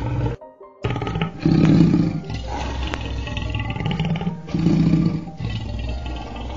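Crocodile growling in deep, rumbling roars, with a short break just after the start and two louder swells, about a second and a half and five seconds in.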